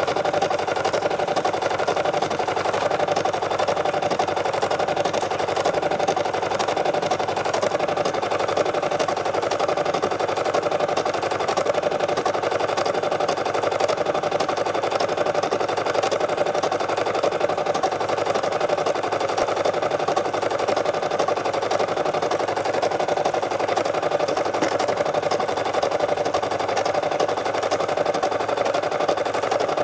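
Brother SE600 computerized embroidery machine stitching out a design at steady speed: a fast, even rattle of needle strokes.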